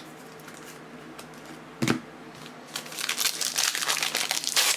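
A single knock about two seconds in, then the dense crinkling and tearing of a foil trading-card pack wrapper being ripped open.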